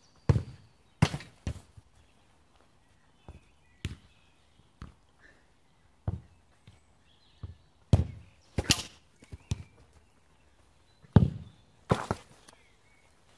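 A football kicked again and again: a series of sharp thuds, some in quick pairs, the loudest about eight and eleven seconds in.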